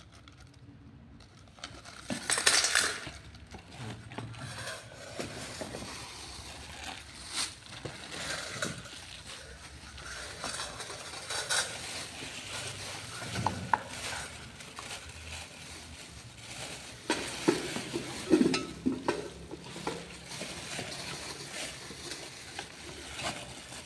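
Blender parts being handled and fitted together: scattered clinks, knocks and rustles of plastic pieces and small metal fittings, with a louder cluster about two seconds in and more near the end.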